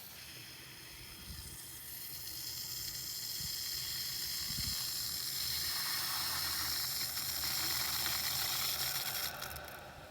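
Water hissing through a just-reopened water supply line as it refills after a leak repair, growing louder over the first few seconds and fading near the end.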